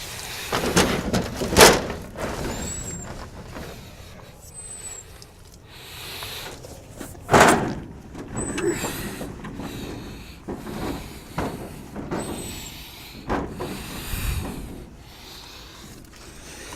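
Irregular scrubbing and scraping as greenhouse glass is cleaned of algae, with two louder swishes, one about one and a half seconds in and one about seven and a half seconds in. A bird repeats a short high chirp in the background.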